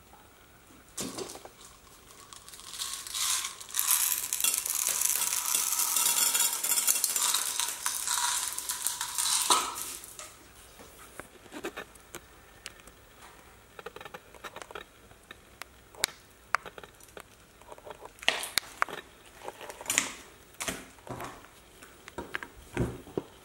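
Homemade green slime being stretched and handled over a ceramic dish. From about three seconds in, a loud, dense crackling runs until nearly ten seconds, as the slime is pulled into a thin sheet. After that come scattered short sticky clicks and squelches as it is handled.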